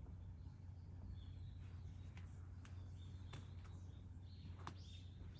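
Faint outdoor ambience: a low steady hum with scattered short, high chirps of small birds, most of them in the second half, and a few sharp ticks.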